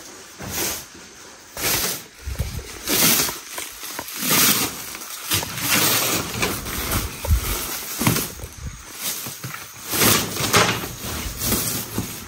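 A woven sleeping mat being unfolded, shaken out and spread over a bamboo-slat bed: repeated bursts of rustling and flapping.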